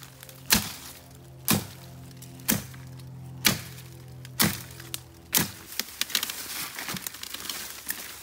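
Machete chopping into a small tree trunk: six sharp strikes, about one a second. They are followed by a run of lighter cracking and rustling in the brush as the cut tree comes down.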